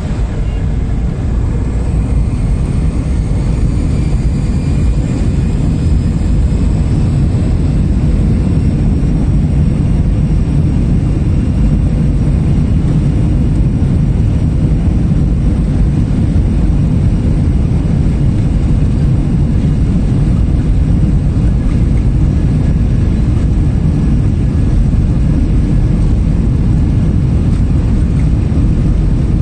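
Jet airliner cabin noise heard at a window seat over the wing: a steady, loud blend of engine and airflow noise, heaviest at the low end. A faint high whine falls in pitch over the first few seconds.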